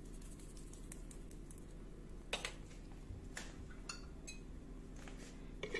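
A few light clicks and taps of kitchen utensils around a plastic mixing bowl, the sharpest about two seconds in, over a faint steady hum.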